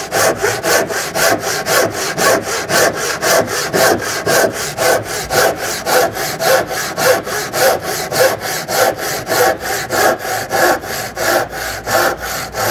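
Handsaw cutting across the horn of a painted timber door stile in quick, steady strokes, about four a second.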